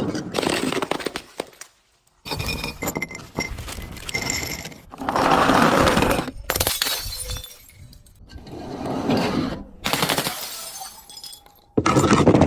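Glass being crushed, shattering and crunching. It comes in a run of about six separate crushes, each starting abruptly and crackling for a second or two.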